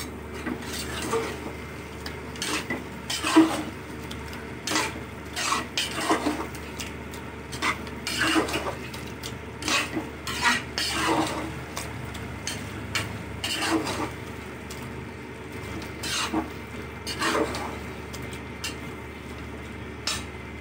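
A long metal spoon scraping and clinking against the inside of a metal pressure cooker as thick chicken gravy is stirred, in repeated strokes roughly one a second.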